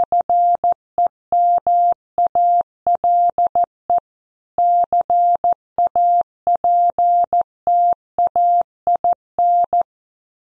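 Computer-generated Morse code at about 14 words per minute: a single steady beep of roughly 700 Hz keyed into short dots and longer dashes with gaps between letters and words, spelling out a news headline. The keying stops shortly before the end.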